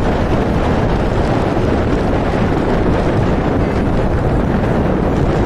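Steady wind buffeting the microphone of a vehicle on the move, a dense rushing noise heaviest in the low end.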